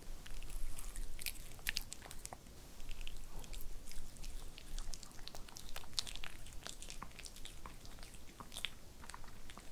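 A white Pomeranian chewing a carob-coated dog treat, with many quick, irregular clicks and smacks of its mouth.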